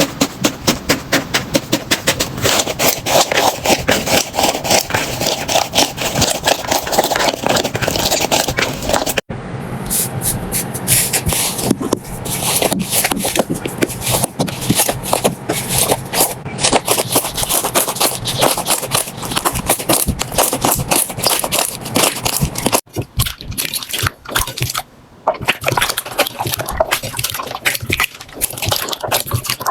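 Slime being squeezed and pressed by hand, giving a dense run of sticky crackling and popping clicks. The texture changes abruptly about 9 and 23 seconds in, as one slime gives way to another.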